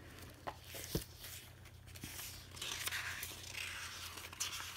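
Pages of a Hobonichi Techo planner being riffled and turned by hand: soft rustling of its thin Tomoe River paper, with a small click about a second in.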